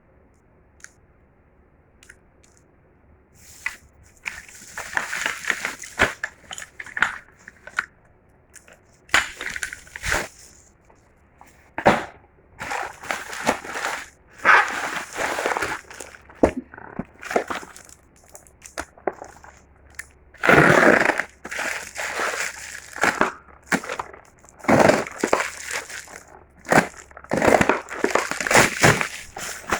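Packaging being handled and torn open: irregular crinkling, crackling rustles with sharp clicks, starting a few seconds in.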